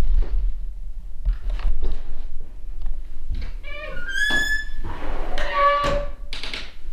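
A few dull knocks and thunks, then a squeak that rises in pitch and holds for about a second, about three and a half seconds in, and a shorter, lower squeal just after.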